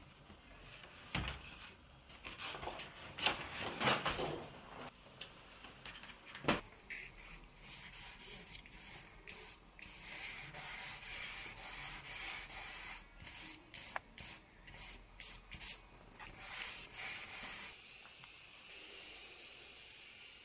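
Pencil scratching on drawing paper in quick, repeated sketching strokes. There are a few louder separate scrapes in the first seconds, then a long run of dense shading strokes.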